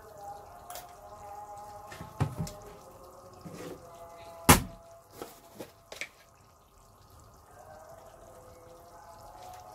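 A few sharp knocks and clicks in the kitchen, the loudest a single crisp click about four and a half seconds in, over a faint steady hum.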